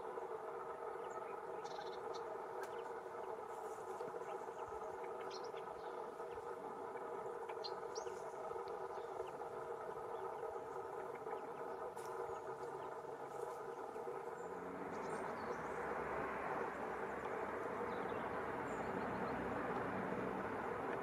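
The camera's own operating noise, a steady whine of several tones, with short high bird chirps scattered over it. About fourteen seconds in, a louder rushing noise takes over.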